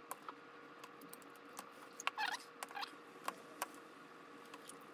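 Light clicks and taps of plastic hose-reel motor parts being handled, about eight scattered ticks, with a brief squeak about two seconds in. A faint steady hum lies underneath.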